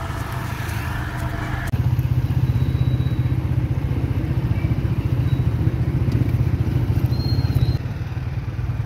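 Motorcycle engine running at road speed, a low pulsing rumble that gets louder about two seconds in.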